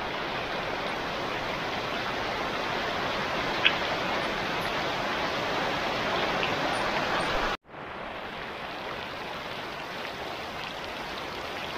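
Heavy rain pouring down in a steady hiss. It breaks off for an instant about two-thirds of the way through, then carries on a little quieter.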